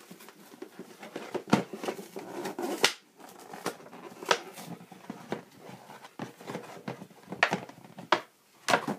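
Action-figure accessories and their packaging being handled and unpacked: irregular rustling with short clicks and taps, a few sharper ones scattered through, the last near the end.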